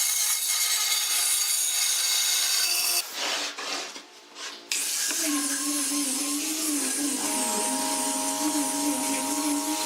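Electric power tool running against wood, with a steady machine whine. It cuts out sharply about three seconds in and comes back after a second or two, running on with a steady hum.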